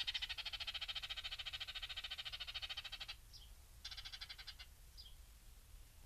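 An animal's rapid trill for about three seconds, a shorter trill about a second later, and short high falling calls repeating every second and a half or so.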